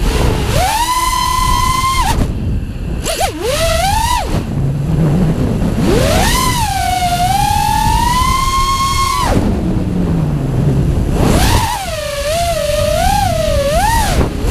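FPV quadcopter's brushless motors whining, the pitch sliding up and down with the throttle and dropping away twice as the throttle is cut, with a few quick wobbles near the end. A low rush of air runs beneath the whine.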